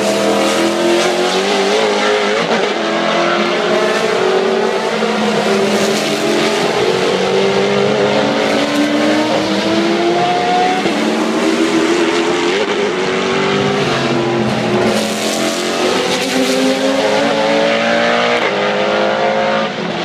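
A stream of race cars passing in close succession. Their engines accelerate hard through the gears, each note climbing and then dropping back at an upshift, with several cars overlapping. The sound fades just before the end.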